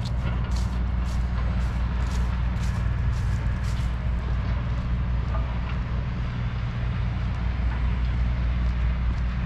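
Steady low engine hum of street traffic, with footsteps at about two a second that fade out about four seconds in.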